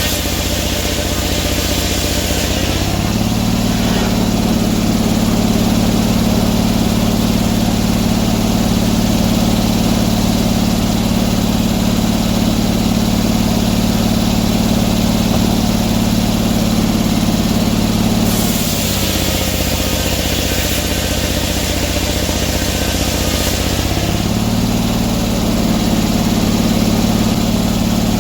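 An engine running steadily. Its pitch is lower, with a hiss alongside, for the first few seconds and again for about six seconds past the middle, and rises back to a higher steady speed in between.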